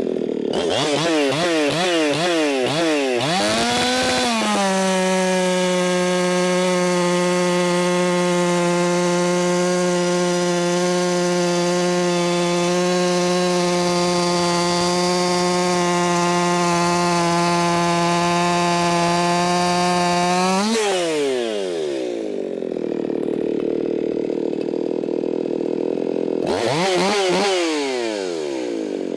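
Ported Echo 4910 two-stroke chainsaw, tuned lean to about 14,800 RPM. It is blipped up and down several times, then held at full throttle at a steady pitch for about sixteen seconds. It then drops to idle and is revved once more near the end.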